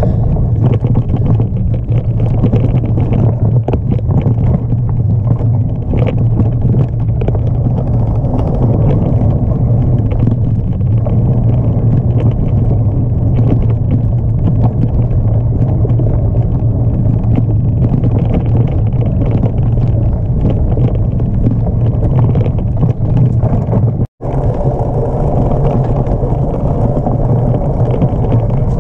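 Steady wind rumble on the microphone of a camera mounted on a mountain bike riding fast along a dirt trail, with frequent small rattles and knocks from the bike going over the ground. The sound drops out for an instant near the end and picks up again slightly different.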